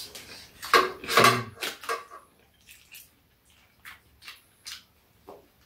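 Eating sounds: metal cutlery clicking and scraping on a metal serving tray and foil while fried chicken is picked apart and chewed, with a louder cluster of sounds about a second in and scattered short clicks after.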